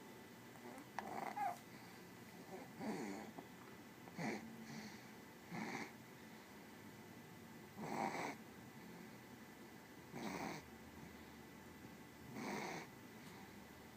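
A small pet snoring in its sleep: seven short snores, about two seconds apart.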